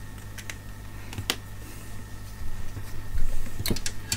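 A few light, sharp clicks and taps from test probes being handled and placed on components in the power supply, over a steady low hum.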